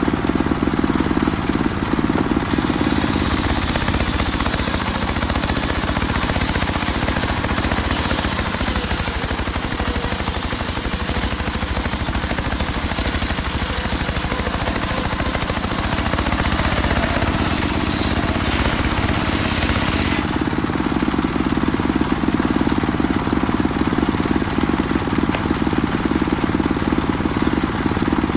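Homemade circular saw rig running steadily. Its blade rips through a mahogany log from a couple of seconds in until about two-thirds of the way through, adding a bright hiss over the machine's running hum, then the saw runs on without load.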